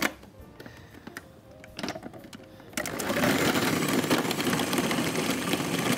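Electric food processor starting up about three seconds in and running steadily, its blades chopping and mixing the meat, onions and spring onions. A few light kitchen clicks come before it.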